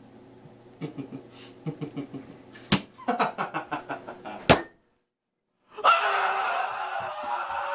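A run of quick short pops with two sharp slaps. After a second of dead silence, a man lets out a long, loud scream about six seconds in.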